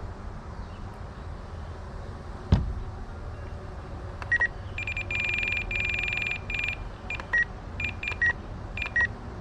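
A sharp click, then electronic beeps from a Spektrum NX8 RC radio transmitter being switched on: two short beeps, a long pulsing beep lasting about two seconds, then a string of short single beeps.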